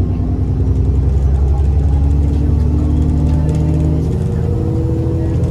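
Diesel engine of a double-decker bus running under way, heard from on board. The engine note steps up in pitch a couple of times partway through.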